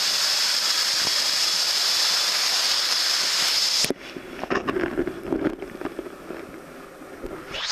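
Waterfall water rushing steadily. About four seconds in it cuts out abruptly to a quieter, muffled stretch of gurgling and small splashes, and the full rush comes back near the end.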